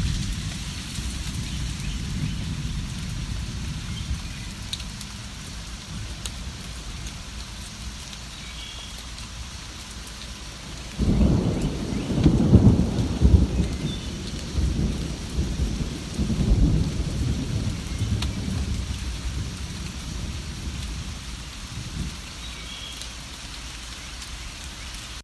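Steady rain falling, with a long rolling rumble of thunder that starts about halfway through and fades out over several seconds. A few faint bird chirps sound through the rain.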